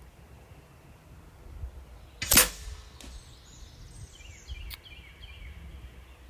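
A single rifle shot about two seconds in, sharp and short with a brief ringing tail; a second shot starts right at the very end.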